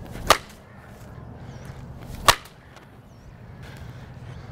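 A cricket ball struck by a willow cricket bat that has cracked again through its glued repair: one sharp crack about a third of a second in, then a second sharp knock about two seconds in.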